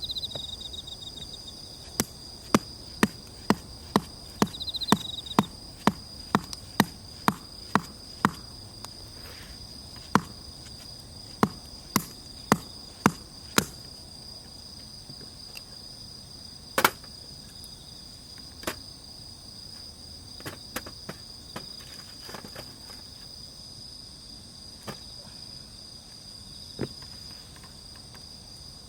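Insects chirring steadily in high, unbroken tones, with a run of sharp knocks about two a second through the first half that thin out to scattered knocks later on.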